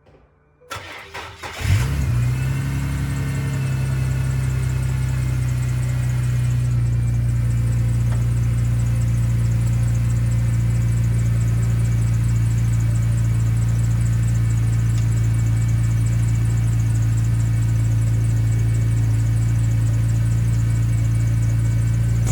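Ford BA Falcon XR6 Turbo's turbocharged 4.0-litre straight-six cranked and started, catching about a second and a half in, then idling steadily on a freshly replaced turbo core.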